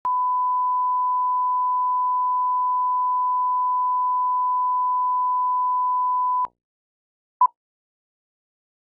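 Broadcast line-up test tone: one steady pure pitch that cuts off suddenly about six and a half seconds in. About a second later comes a single short beep at the same pitch, the sync 'pop' of a countdown leader.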